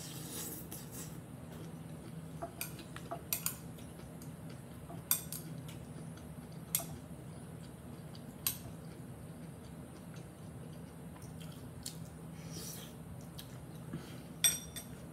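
Metal chopsticks clicking against a glass dish every second or two as food is picked up, with chewing in between; the loudest click comes near the end.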